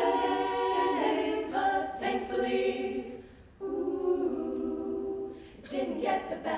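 All-female a cappella group singing held chords in close harmony, with a short break about three and a half seconds in before the next phrase.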